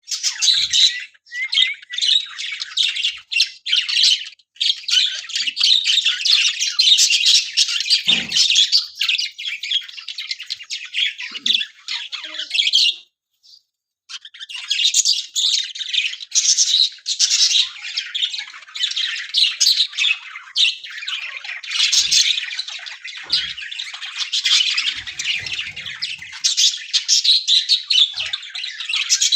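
Budgerigars chattering and squawking in a dense, continuous stream of fast, high calls, with a brief pause a little under halfway through.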